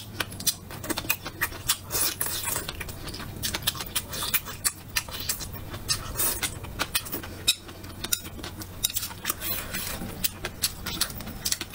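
A person chewing and smacking food close to the microphone: a dense, irregular run of small sharp wet clicks and smacks.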